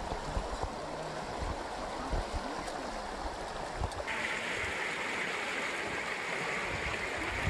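Stream water rushing over rocks, a steady hiss; about four seconds in it suddenly becomes louder and hissier, as of white water close by. Before that, a few dull low knocks.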